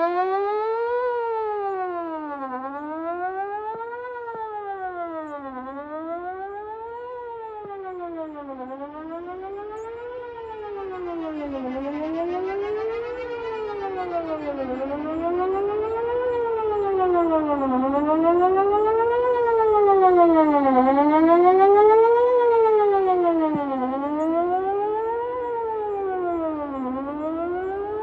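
Whelen 4008 electronic outdoor warning siren heard from a distance, sounding a fast wail whose pitch sweeps up and down about every one and a half seconds. Its loudness sinks for a few seconds, then swells again.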